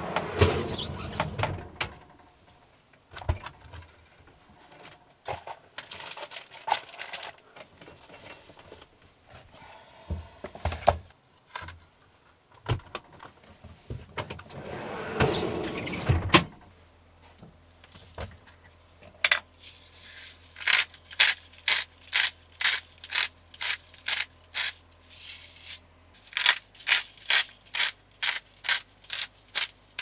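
Kitchen handling in a camper van: irregular knocks, clatter and scrapes as things are moved about and taken from a portable fridge. About halfway through a steady low hum starts, and from about two-thirds of the way in there is a run of sharp, even strokes, about two a second.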